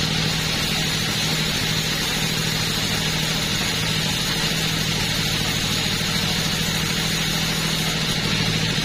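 Two-stroke chainsaw engine running steadily at a constant speed.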